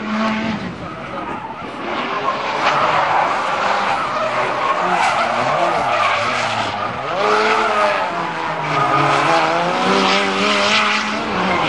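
Nissan S13 drift car's turbocharged SR20DET four-cylinder engine revving up and down as the car slides sideways, with tyres skidding and squealing throughout.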